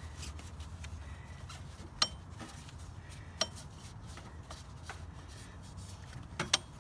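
Scattered sharp metallic clinks of a wrench and ratchet knocking against engine parts while a serpentine belt is levered on, a few single clicks and a quick pair near the end, over a low steady background hum.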